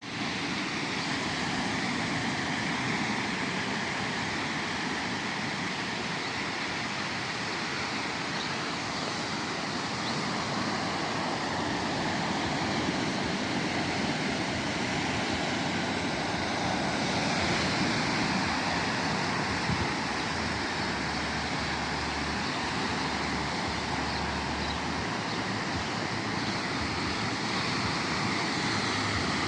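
Sea waves washing onto the shore, a continuous surf noise with no breaks, with a deeper rumble for a few seconds past the middle.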